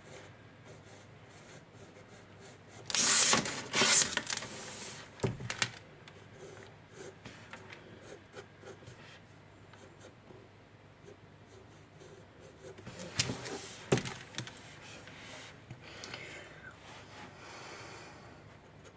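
Graphite pencil sketching on sketchbook paper: soft scratchy strokes, with louder bursts of rubbing about three seconds in and again around thirteen seconds in.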